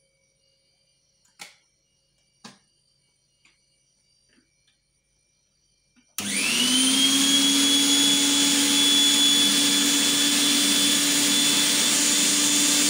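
Butterfly Rapid mixer grinder's motor base switched on at its speed knob and run empty with no jar fitted: its whine spins up in a fraction of a second about six seconds in and holds steady, then stops at the end. Two faint clicks come before it.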